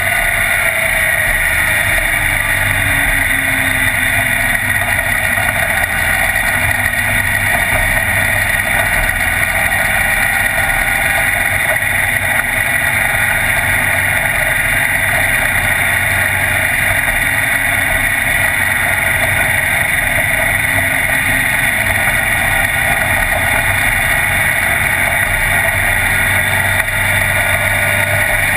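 Race car engine running at speed, heard from inside the open, roll-caged cockpit, a loud steady drone mixed with wind and road noise, rising and falling a little in pitch near the start.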